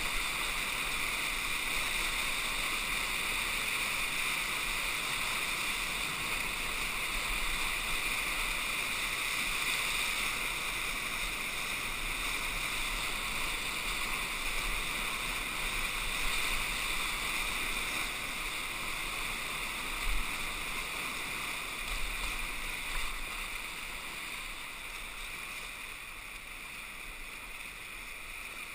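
Whitewater rapids rushing around a kayak, a steady noise that slowly grows quieter near the end as the boat reaches calmer water. Two brief knocks stand out about two-thirds of the way through.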